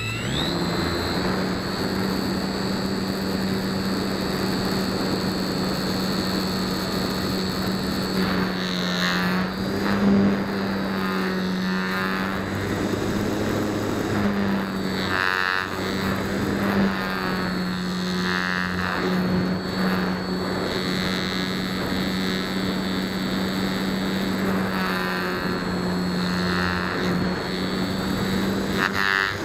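Electric motor and propeller of a Flite Test Nutball foam-board RC plane in flight, a steady whine heard close up from the on-board camera. Wind rush sits under it, and the pitch swells and dips briefly several times.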